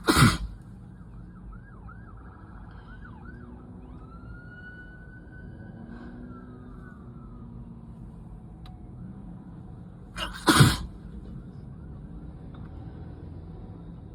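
Two loud sneezes from a person in a cold-and-allergy sneezing fit, one right at the start and one about ten and a half seconds in, each with a short build-up just before it. A faint siren wails between them.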